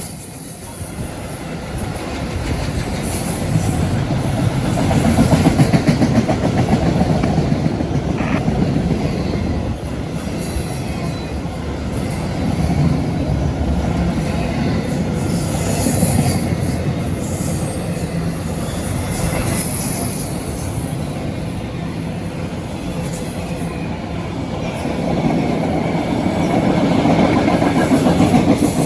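CSX freight train rolling past at close range: a steady rumble of cars over the rails, with wheel clatter and occasional high wheel squeal.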